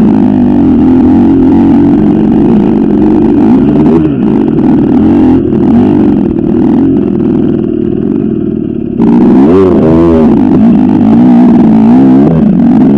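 KTM 250 EXC two-stroke enduro motorcycle engine running loud and close, revving up and down as the bike is ridden. About nine seconds in the sound changes to quick, repeated rises and falls in revs.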